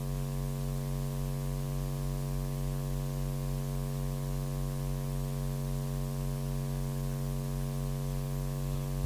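Steady electrical mains hum with a stack of even overtones in the commentary sound feed, unchanging throughout.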